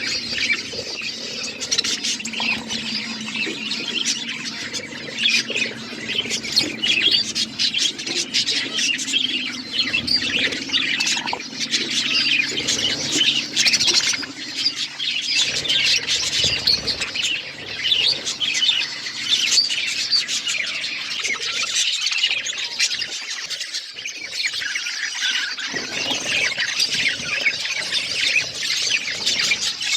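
Budgies chirping and chattering in a dense, continuous stream of high chirps.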